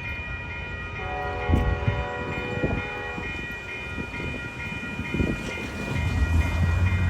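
Amtrak passenger train with P42DC diesel locomotives running past, with a low rail rumble. Steady high ringing tones run throughout, and a held horn blast sounds from about a second in for about two seconds.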